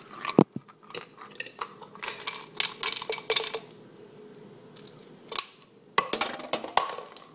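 A run of sharp clicks and light metallic clinks from things being handled. The loudest is a sharp knock about half a second in, followed by clusters of clicks around two to three seconds in and again near the end.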